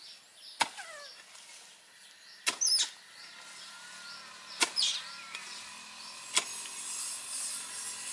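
Long-handled hoe blade chopping into weedy soil, a sharp stroke about every two seconds.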